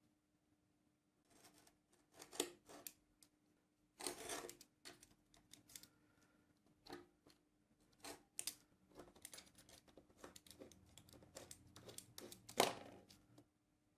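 Irregular scrapes and clicks of hand work, a series of short strokes starting about a second in and stopping just before the end.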